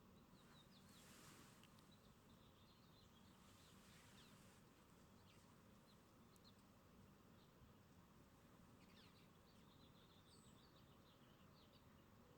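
Faint chirping of small backyard birds: rapid runs of short, high chirps in two bouts, one in the first few seconds and one about three-quarters of the way through, over a low steady hiss.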